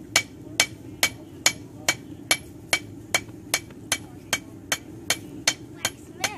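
Blacksmith's hand hammer striking metal on an anvil in a steady forging rhythm, about two blows a second, each blow ringing briefly.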